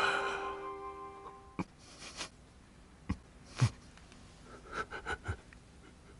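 A man weeping: scattered short sobs, sniffs and catching breaths, while a held music chord fades out in the first second or two.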